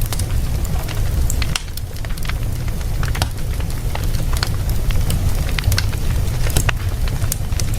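Wood fire burning in a fireplace, crackling with frequent irregular sharp pops and snaps over a steady low rumble.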